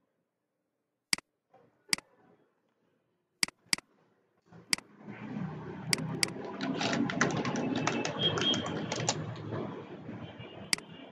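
A few separate computer mouse clicks, then computer keyboard typing: a quick run of keystrokes from about five seconds in, entering a word into a web form.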